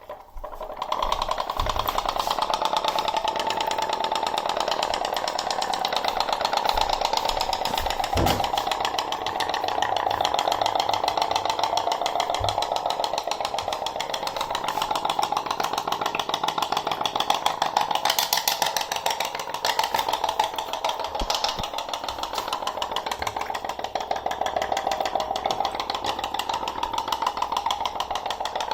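Toy putt-putt (pop-pop) boat running: its small steam boiler puttering in a fast, steady string of pops, starting about a second in.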